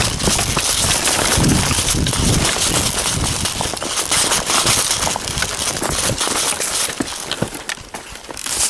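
Footsteps and rustling of clothing and brush close to the microphone as a player moves, with many small cracks and clicks.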